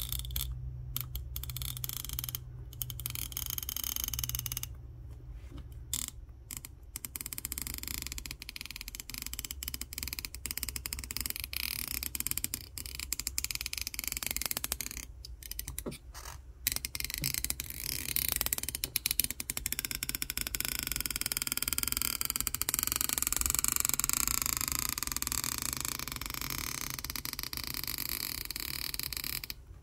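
Stretch-release battery adhesive strip being pulled out from under an iPhone 14 Pro battery, creaking and squeaking as it stretches, with drawn-out squeals falling in pitch in the second half.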